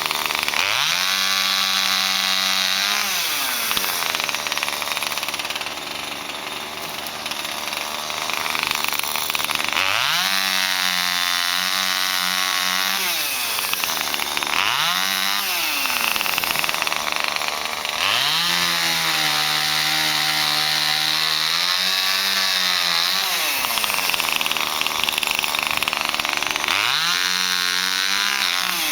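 A chainsaw revved up five times, held at high revs for a second or several while cutting wood, and dropping back to idle between cuts.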